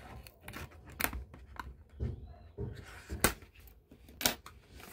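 Hands handling a cardboard body-splash box, scattered taps and scrapes of card with a few sharper clicks as it is turned and opened.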